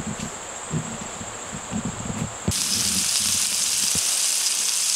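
A steady high insect trill in the woods, then about halfway through a cut to smash burger patties sizzling on a Blackstone flat-top griddle: a loud, steady, even hiss.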